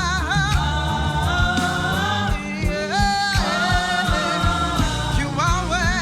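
Live gospel praise music: voices singing with vibrato over bass and a steady drum beat.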